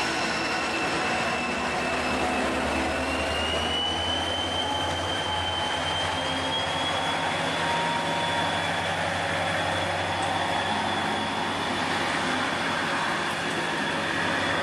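DSB ME diesel-electric locomotive and its double-deck coaches pulling away past a station platform: a steady low engine hum and running noise, with a high whine that rises slightly in pitch as the train gathers speed.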